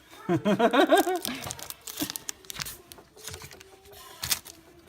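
A trading-card pack wrapper crinkling and rustling as the cards are pulled out of the just-opened pack, in small scattered crackles after a short spoken exclamation in the first second.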